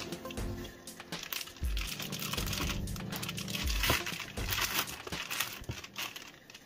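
Thin clear plastic drawstring bag crinkling and rustling as gloved hands untie it and pull it open, with louder rustles about a second and a half in and again near four seconds.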